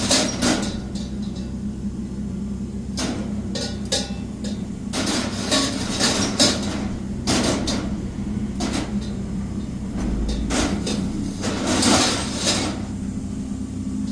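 Irregular metallic knocks and scrapes from work on a copper pot, some in quick clusters, over a steady low hum.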